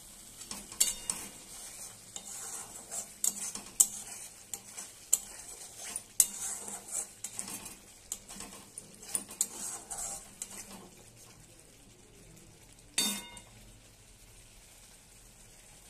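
Metal spatula scraping and clinking against a metal kadhai, stirring masala as it fries (bhuna) with a sizzle. The stirring stops about eleven seconds in, and there is a single louder clank about two seconds later.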